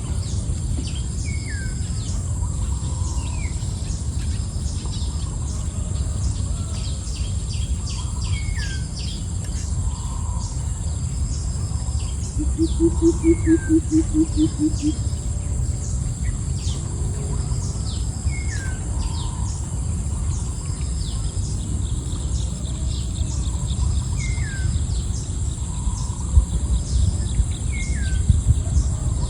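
Wild birds calling, one repeating a short falling whistle every few seconds, over a steady high insect drone and a constant low rumble. About twelve seconds in, a low, pulsing call of about eight quick notes stands out as the loudest sound.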